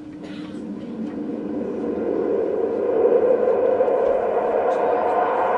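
A sustained, steady tone rich in overtones, swelling in loudness over about three seconds and then holding: a held musical or electronic sound-effect tone.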